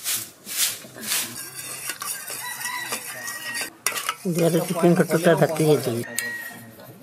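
Metal spoon stirring and scraping beaten eggs in a stainless-steel tiffin box, clinking against its sides. About four seconds in, a loud wavering call lasts about two seconds.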